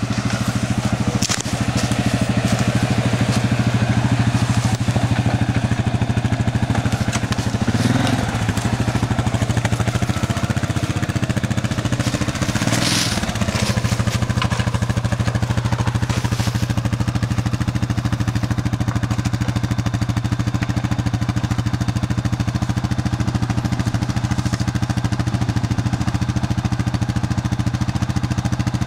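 ATV engine running at a steady low idle, its note wavering briefly twice in the first half.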